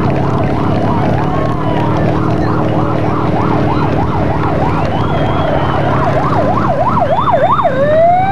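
Electronic vehicle siren yelping in a fast up-and-down warble, about three sweeps a second, that quickens near the end and then switches to a slow rising wail. A steady engine hum runs underneath.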